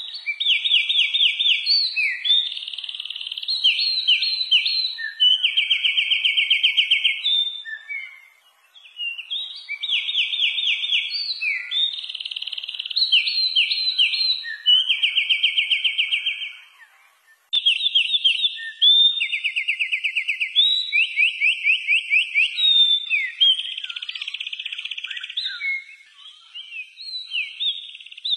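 A songbird singing. It gives a high-pitched phrase of rapid trills and chirps lasting about eight seconds and repeats it three times, with short pauses between.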